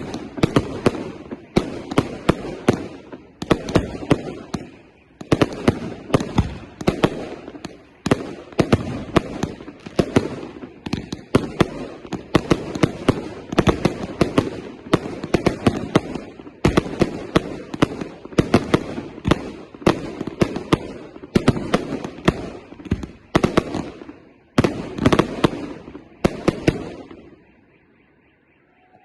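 Fireworks display: rapid volleys of sharp bangs, several a second in clusters with short gaps between, stopping about 27 seconds in and dying away.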